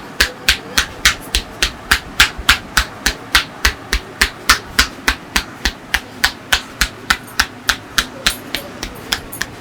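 Massage percussion: a street barber's hands striking the client's head or back in quick, even chops, about three sharp strikes a second.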